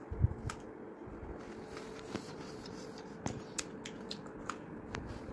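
Close-up crunching of a crisp Milk Bikis biscuit topped with condensed milk as it is bitten and chewed: a low thump just after the start, then scattered short crunches.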